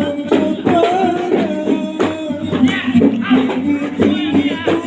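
Traditional Kei gambus music played live. A wavering sung or bowed melody runs over a steady beat of hand-drum strikes.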